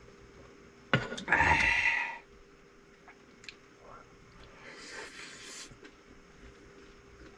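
A man's short wordless vocal exclamation about a second in, lasting about a second and opening with a sharp click, then a softer breathy exhale around five seconds in.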